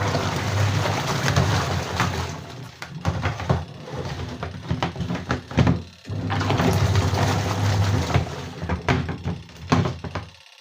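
Washing machine running its wash cycle: a motor hum with the churning of water and clothes, easing off briefly about six seconds in and picking up again, then cutting off suddenly just before the end.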